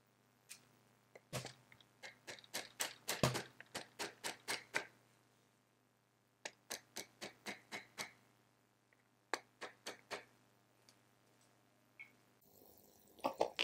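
Light plastic clicking from a brick-built toy car model's parts as its front wheel is worked with a tool: three runs of sharp ticks, about three or four a second, over a faint steady low hum.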